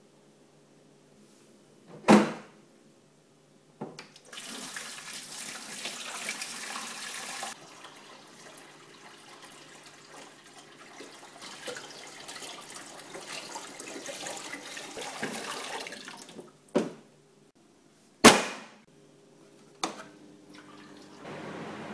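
Water being poured into the tank of a Bonaire Maxicooler portable evaporative air cooler, splashing hardest for the first few seconds and then running on more gently. A sharp knock comes before the pouring, and three more follow it, the loudest about a second and a half after it stops.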